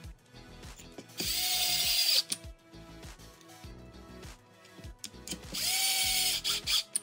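Small cordless electric screwdriver running twice, about a second each time, with a steady motor whine that spins up and winds down. On the second run it drives a flathead screw into an RC truck chassis.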